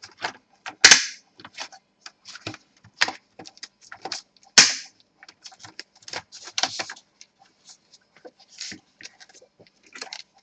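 Plastic snap-fit clips of a Dell Inspiron 15 3000 laptop's palmrest cover clicking and popping as the cover is pried up off the base. Two sharp snaps stand out, about one second in and at about four and a half seconds, among many smaller clicks.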